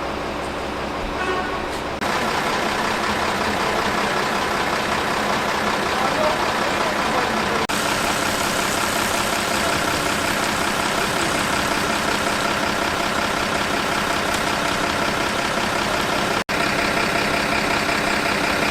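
Fire engine's diesel engine running, with voices mixed in; the sound changes abruptly about two, eight and sixteen seconds in.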